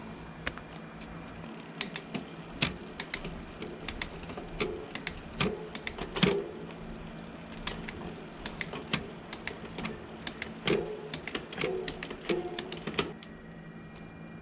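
A run of irregular sharp clicks, coming in small bunches for about eleven seconds and stopping about a second before the end.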